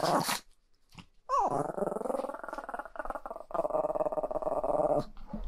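A Chihuahua fussing: a short sharp noise at the start, then, from about a second in, a long drawn-out whining vocalization. It opens with a rising-then-falling pitch and runs on in two stretches with a short break near the middle. The dog is protesting its owner going out.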